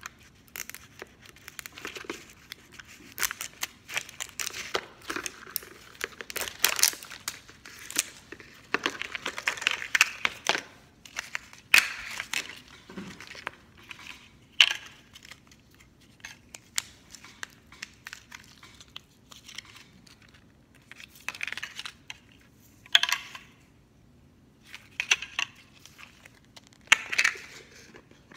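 Plastic toy packaging peeled and unwrapped by hand: irregular crinkling and crackling with small tearing sounds and a few sharper snaps.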